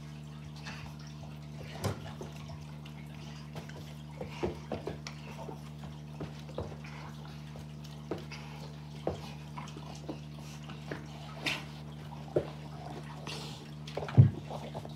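Scattered light clicks and taps over a steady low hum, with one loud short sound near the end as a French bulldog comes right up to the microphone.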